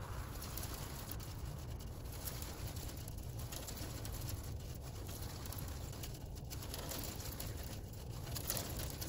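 Wind buffeting the microphone with an uneven low rumble and light crackle, while the tyre noise of a passing car fades away in the first moments.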